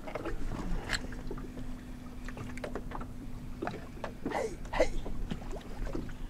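Small fishing boat on open water, with a steady low hum running through it and scattered light clicks and knocks from rod and reel handling.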